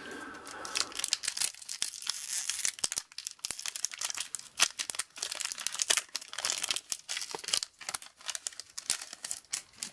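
Foil booster pack wrapper being torn open and crinkled by hand, with irregular crackling and tearing throughout.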